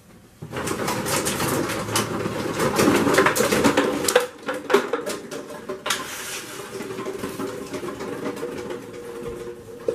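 Empty plastic water bottles crinkling and clattering as they are gathered up by hand, with many small crackles and knocks. It is loudest in the first few seconds and quieter after about four seconds.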